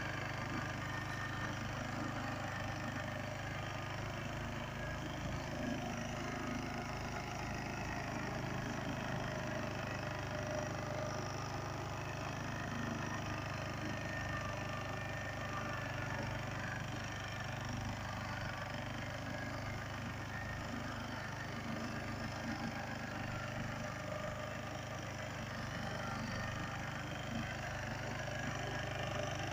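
Pasquali two-wheel walking tractor's engine running steadily under load, driving a rotary tiller through soil.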